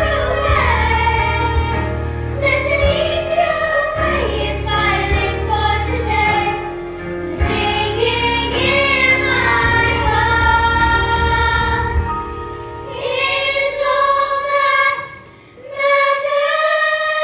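A choir of girls singing over an instrumental accompaniment, in long held notes; the singing breaks off briefly near the end before the next phrase.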